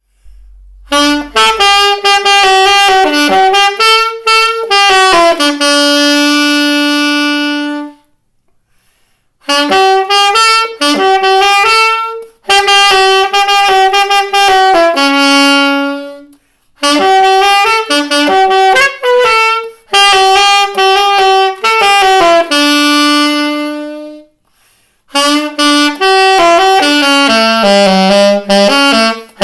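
Unaccompanied saxophone playing a single-line melody in four long phrases, each ending on a held note, with short silent breaths between them.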